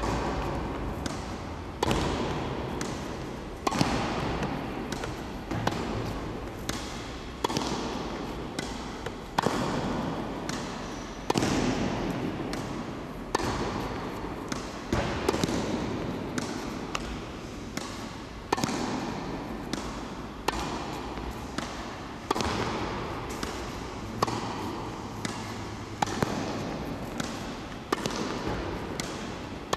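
Tennis ball hit back and forth in a rally with rackets: a sharp pock about every two seconds, with lighter taps of the ball bouncing between. Each hit echoes in a large, hard-walled sports hall.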